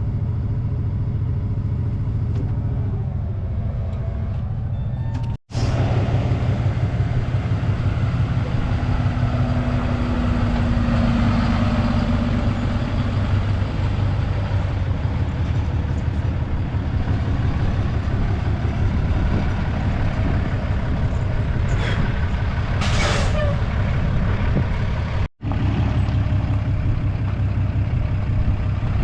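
Heavy tow truck's engine running steadily. A short hiss of air comes about three-quarters of the way through, and the sound drops out abruptly twice.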